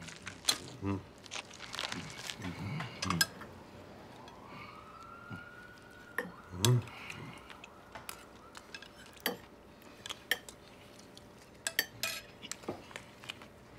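Scattered clinks and knocks of hands and utensils against a stainless steel pot and plates as food is pulled apart and eaten, with brief eating noises. A faint tone rises once, about four seconds in, and holds for a while.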